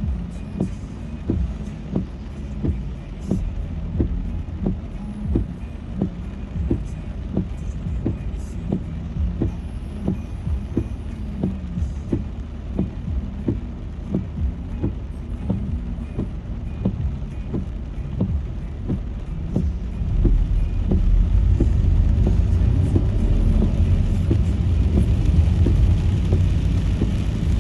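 Car cabin noise while driving: steady engine and road rumble with a regular low thump about one and a half times a second. The rumble grows louder about twenty seconds in.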